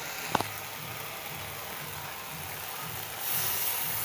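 Snail curry sizzling in a steel wok on a gas stove, with a single clink about half a second in. About three seconds in, the sizzle grows louder as the rinse water from the spice-paste bowl is poured into the hot pan.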